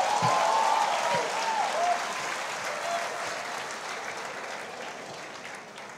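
Audience applauding, with a few voices rising over it near the start. It is strongest in the first two seconds, then slowly dies away.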